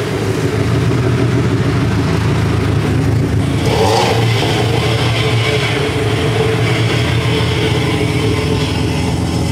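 A car engine running steadily, with a brief louder surge about four seconds in.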